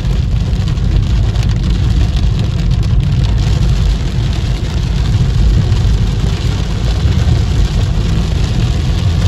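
Heavy rain beating on a car's windshield and roof, heard from inside the moving car over a steady low rumble of engine and tyres on the wet road.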